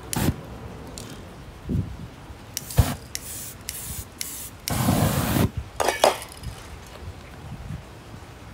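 Aerosol spray-paint can hissing in a series of short bursts, the longest about five seconds in.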